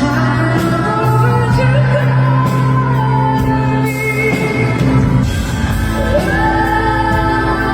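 A woman belting a ballad live over band accompaniment, holding long notes; about six seconds in her voice slides up into another long held high note.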